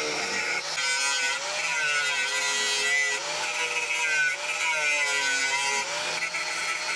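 Angle grinder grinding through the welds of a steel lawnmower deck's handle bracket, a steady grinding hiss with the motor's pitch dipping and recovering as the disc is pressed into the metal.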